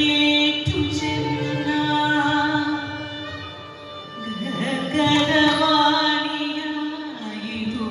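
Carnatic vocal singing in raga Anandabhairavi with instrumental accompaniment, the music for a Mohiniyattam padam: long held and gliding sung notes over a steady drone, with a few soft drum strokes.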